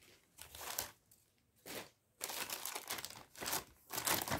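Packaging crinkling and rustling in irregular bursts as it is handled, with short pauses in the first half and near-continuous rustling in the second.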